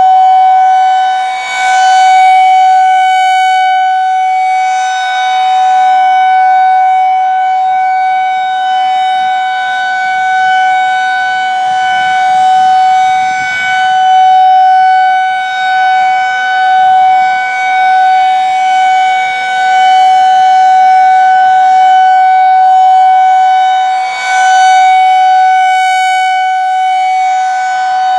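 Federal Signal 2001-SRNB outdoor warning siren sounding a steady Alert tone: one unchanging pitch that swells and fades as the rotating horn sweeps toward and away, loudest and brightest about two seconds in and again near the end.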